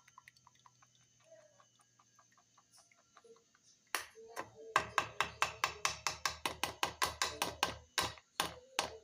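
Kitchen utensil knocking against a strainer in a fast, even run of hard taps, about five a second, that starts about four seconds in and slows to a few spaced knocks near the end. Faint lighter ticks come before the run.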